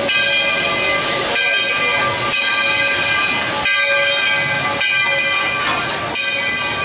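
Walt Disney World Railroad steam locomotive hissing steam, with a pitched ringing that strikes afresh about once a second, like the engine's bell being rung.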